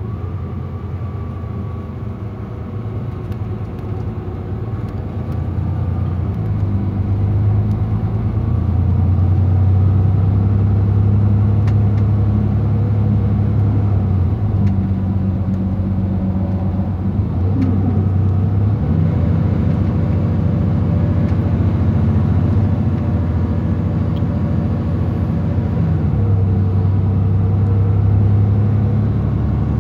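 Mercedes-Benz Tourismo coach under way: a steady low engine drone whose note shifts in steps several times, getting louder after the first several seconds.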